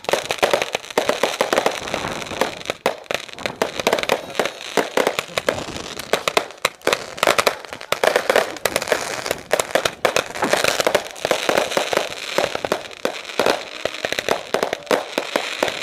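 Crackling fireworks: a dense, rapid stream of sharp pops and crackles from bursting sparks, without a break.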